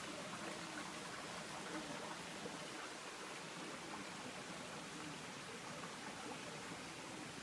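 Faint, steady rainforest background hiss with no distinct events.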